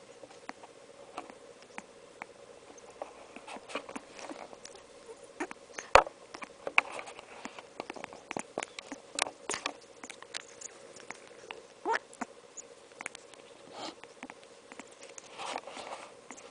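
Congo African grey parrot making baby grey noises: many short, scattered clicks, squeaks and chirps, with one sharp click about six seconds in.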